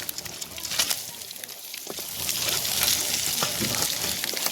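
Food frying in a pan: a steady sizzle with crackles popping through it and a few sharp clicks.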